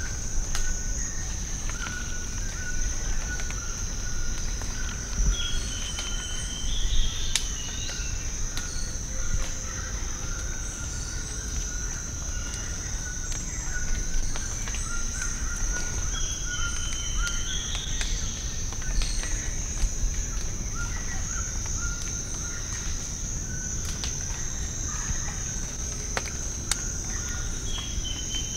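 Rainforest ambience: a steady high-pitched insect drone, with a lower on-and-off trill and a short rising bird call heard about three times.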